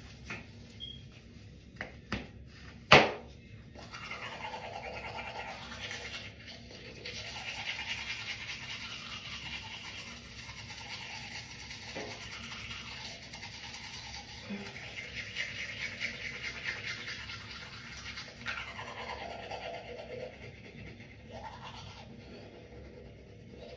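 Teeth being brushed: a toothbrush scrubbing steadily back and forth, starting about four seconds in after a few clicks and a sharp knock.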